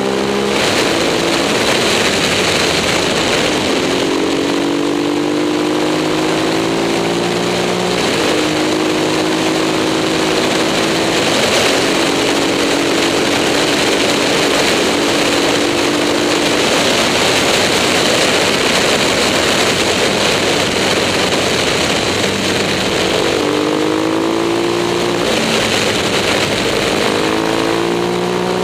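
KTM 950 Super Moto's V-twin engine pulling along under way, its pitch climbing gently and stepping at gear changes several times, over steady wind rush on the microphone. The engine is held to about half revs by a fuel pump problem.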